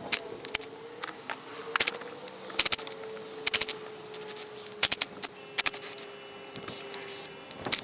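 Short, sharp metallic clicks and rattling bursts, irregularly about once or twice a second, from tools working the bolts of an LT230SE transfer case during teardown. A faint steady hum sits underneath, sinking slightly in pitch near the end.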